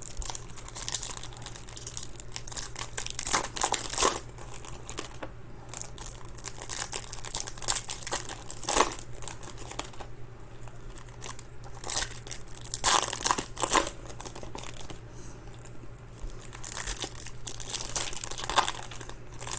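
Plastic and foil trading-card wrapping crinkling and tearing in irregular bursts as a box of baseball card packs is opened by hand.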